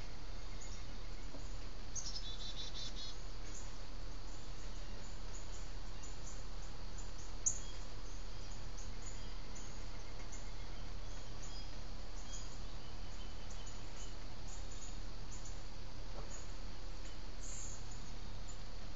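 Outdoor nest-cam sound: a steady low electrical hum under faint, continual high-pitched insect chirping. A brief rapid trill of a bird call comes about two seconds in, and a single sharp tick about seven and a half seconds in.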